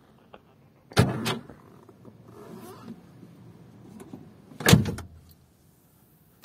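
Electric door lock actuator in a Ford Escort door, fired by a wired push button: two short motorized clunks, one about a second in and another a little before five seconds, each a quick double stroke.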